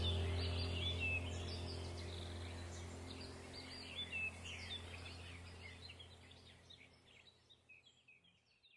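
Birds chirping over a low steady drone, the whole sound fading out gradually to silence near the end.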